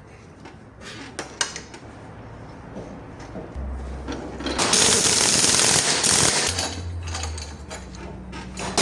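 Power tool, likely an impact wrench, running in loud rapid bursts while the front shock absorber's nuts are worked, after a few scattered clicks and knocks of hand tools.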